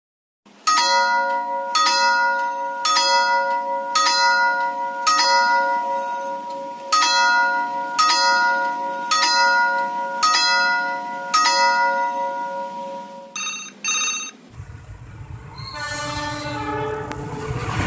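A railway signal bell (genta) struck about ten times at roughly one-second intervals, each strike ringing on in several steady tones. It gives way to the rumble of an approaching diesel-hauled train, with its horn sounding in the last few seconds.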